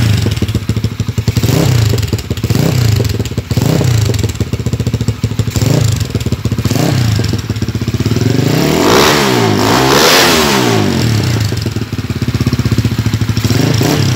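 Motorstar Z200 motorcycle engine breathing through a replica Akrapovic carbon slip-on exhaust with its silencer insert fitted, revved in short throttle blips about once a second. About two thirds of the way through come two longer, higher revs, then more short blips.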